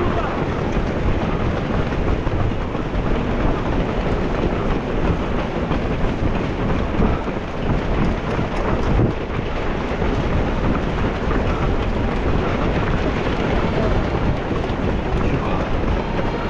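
Strong wind buffeting the microphone, a steady low rumble with no break.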